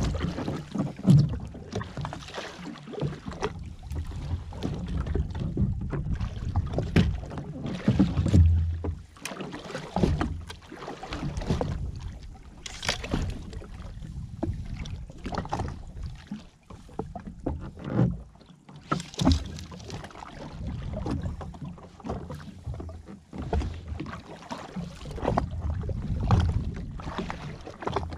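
Small waves slapping and lapping against the hull of a drifting jet ski, in irregular knocks, with wind buffeting the microphone in a low rumble.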